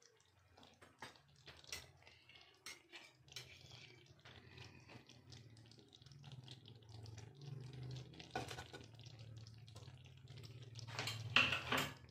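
Thick sugar syrup bubbling and popping in a nonstick pan, many small pops over a low steady hum. The syrup has boiled down to the thick stage. Louder crackling comes about eight seconds in and near the end.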